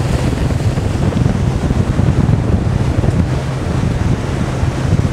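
Wind buffeting the microphone on a moving boat, over the low, steady drone of the boat's motor.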